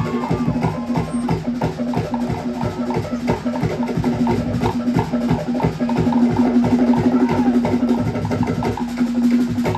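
Cook Islands drum ensemble playing a fast, driving rhythm: wooden slit drums rattle out rapid strokes over a large skin bass drum. The drumming stops abruptly at the end.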